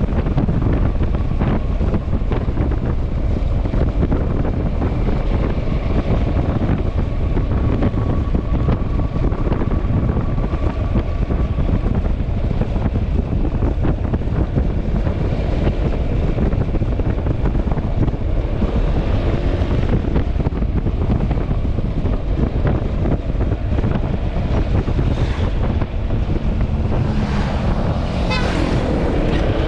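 Heavy wind buffeting on the microphone while riding a Yamaha Xmax scooter, with the engine and road noise underneath. Near the end an engine's pitch briefly rises and falls.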